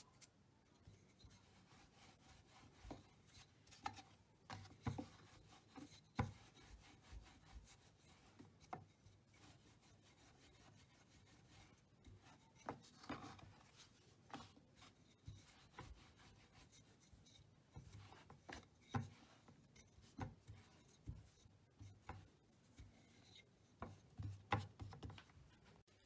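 Hands patting, pressing and rubbing a floured ball of dough flat on a wooden board: soft rubbing with scattered light taps and knocks, a few louder ones near the end.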